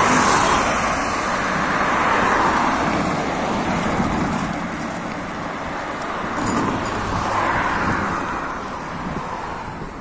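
Road traffic: cars passing close by on asphalt, their tyre and engine noise swelling and fading a few times, then growing fainter near the end.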